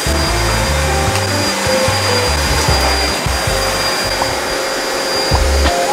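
Upright bagless vacuum cleaner running on carpet: a steady rushing motor noise with a high, even whine, over background music.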